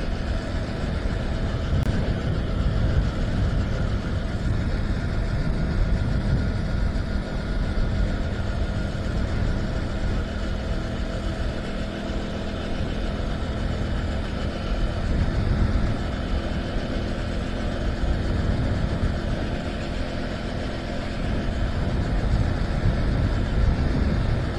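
Motorcycle engine running at a steady cruise, its faint even hum under a dense low rumble of wind and road noise.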